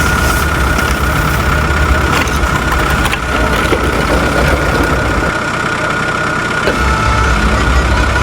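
A steady engine running sound: a low rumble with a constant high whine over it. The rumble drops away for about a second and a half a little past the middle, then comes back.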